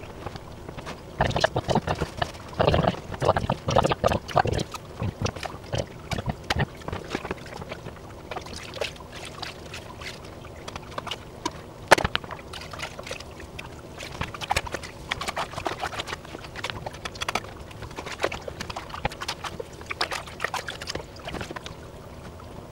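Aquarium water sloshing and splashing as a gravel siphon and hands work in the tank, with irregular clicks and knocks. The splashing is busiest in the first few seconds, and a single sharp knock comes about halfway through.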